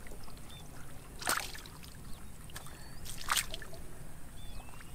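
Hands groping through shallow muddy water, with two brief splashes, about a second in and about three seconds in.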